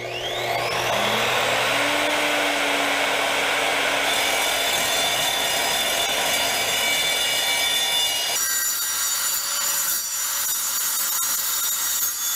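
Evolution R255-SMS sliding compound miter saw spinning up with a rising whine, then its non-abrasive toothed blade cutting through 2-inch mild steel pipe with a 1/8-inch wall: a loud, steady metal-cutting noise full of ringing tones. The sound thins and turns higher about eight seconds in as the cut goes on.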